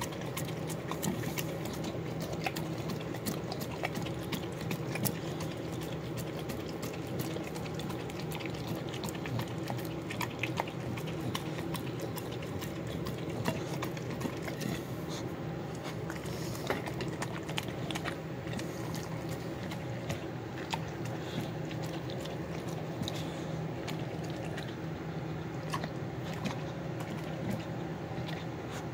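A large dog licking and lapping a wet meal of broth, rice and beans off a plate, with quick wet smacks and tongue clicks throughout.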